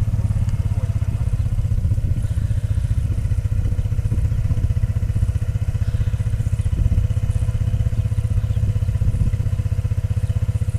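ATV engine running steadily at an even speed, with a rapid even beat of firing pulses.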